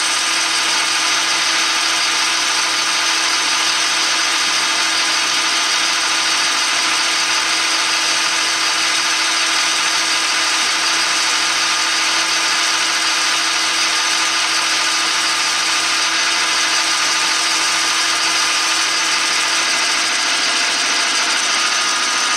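Metal lathe running steadily, its carbide insert taking a light spring cut on a steel PTO gear part built up with weld. A steady machine whine with several held tones over a hiss, unchanging throughout.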